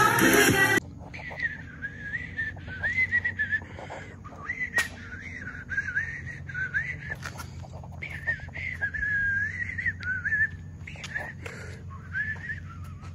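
Background music cuts off just under a second in. Then a person whistles a wandering tune, pitch sliding up and down, with a few sharp clicks and knocks scattered through it.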